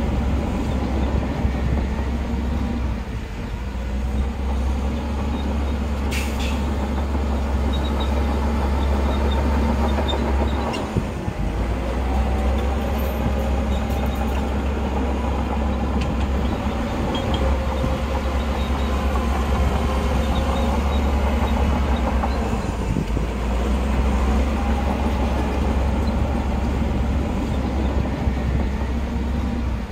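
Heavy diesel earthmoving machinery working: a steady deep engine rumble that dips briefly about a third of the way in and again past three quarters, with a wavering higher whine in the middle stretch and a sharp click about six seconds in.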